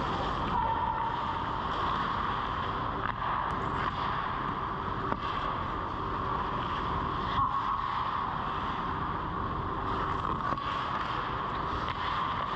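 Steady rushing background noise of an indoor ice rink during play, with a constant high hum and a few faint clicks and scrapes from skates and sticks on the ice.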